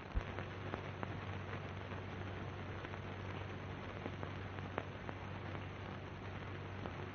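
Background noise of an early-1930s film soundtrack: steady hiss and crackle over a low hum, with scattered clicks and a sharp pop just at the start.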